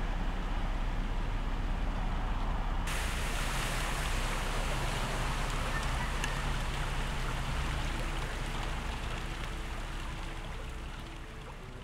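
Steady rain and storm noise with a low rumble; about three seconds in it changes to a brighter, fuller hiss of rain and running floodwater. Faint music fades in near the end.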